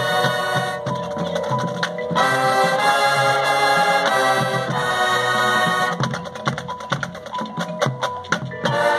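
Marching band playing, with held wind and brass chords alternating with stretches of clicking percussion. From about six seconds in the band drops back to a quieter passage of rapid percussion clicks, and the full chords come back near the end.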